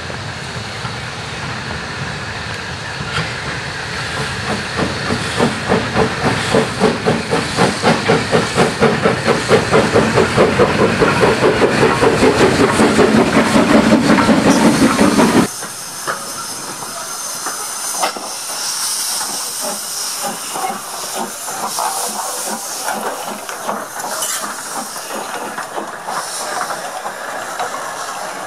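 Steam locomotive pulling away with a train, its exhaust beats coming quicker and louder as it gathers speed, with steam hissing. It cuts off abruptly about halfway through, and softer steam hissing and clanking follow as a second locomotive moves slowly.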